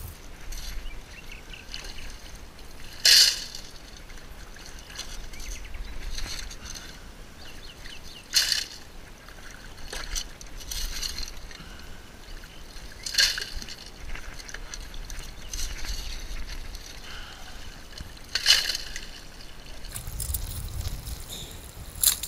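A shovel working gravel in a shallow creek bed, with water sloshing and trickling and a short sharp clatter about every five seconds, four times.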